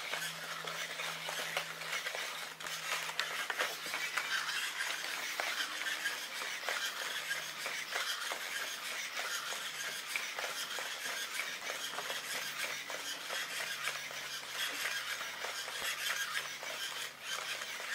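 Sony AIBO ERS-210 robot dog's joint motors and gears working as it shifts and turns on carpet, a stream of small clicks and ticks over a faint hum and steady hiss.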